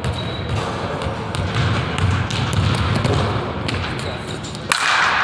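Basketball thumping on a hardwood gym floor with short squeaks and sharp clicks of players' footwork, under indistinct voices echoing in the gym. A sudden louder burst of noise comes near the end as players go up for a rebound.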